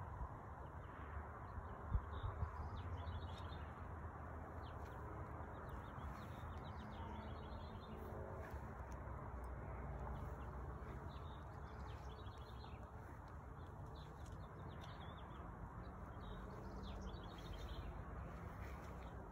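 Small wild birds chirping in quick repeated twitters over a steady low outdoor background rumble, with a couple of brief sharp taps about two seconds in.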